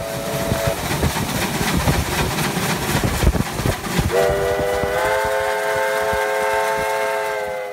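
Steam locomotive under way, its exhaust and running noise loud, with a short whistle toot at the start. From about four seconds in its whistle sounds one long blast of several notes at once, held to the end.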